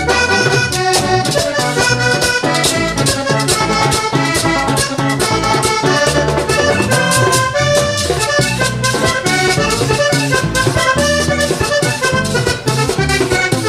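Vallenato band playing an instrumental passage led by a Hohner button accordion, which plays many quick notes over bass guitar and a steady hand-drum and percussion beat.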